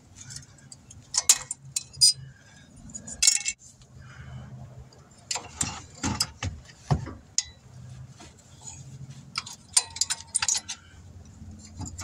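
Hand tools clicking and clinking against a car's front disc brake caliper and pad hardware as the brake is reassembled: scattered short metallic taps, with a faint low hum coming and going underneath.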